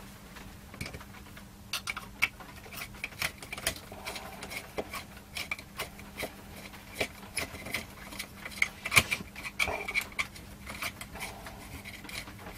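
Pliers and a screwdriver clicking, tapping and scraping on a nut and screw on a small sheet-metal power-supply case as the screw is being undone. The clicks come irregularly, several a second at times.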